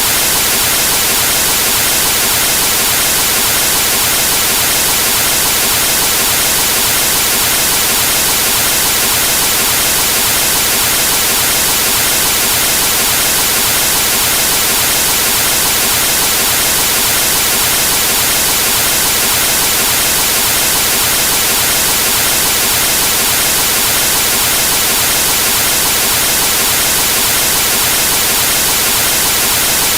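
Television static from a dead cable channel: loud, steady hiss of TV snow, unchanging throughout.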